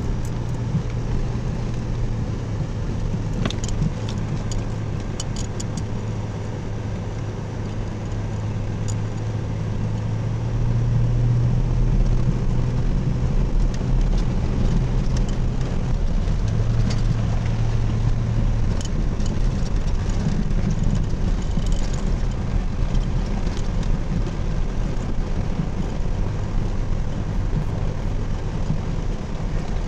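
Four-wheel-drive vehicle driving slowly on a snowy road, its engine and road noise heard from inside the cabin as a steady low hum that grows louder about eleven seconds in. A few light clicks sound here and there.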